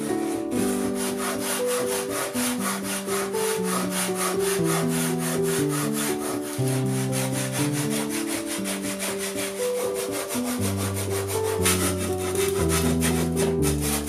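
Japanese handsaw cutting through a red cedar board in rapid, even back-and-forth strokes, with piano background music underneath.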